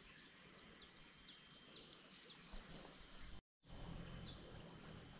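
Steady high-pitched insect drone with scattered short bird chirps. The sound cuts out completely for a moment about three and a half seconds in.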